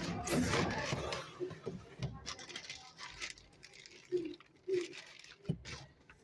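Handling noise from unboxing a camcorder: a rustle of packaging for about the first two seconds, then scattered clicks and light knocks.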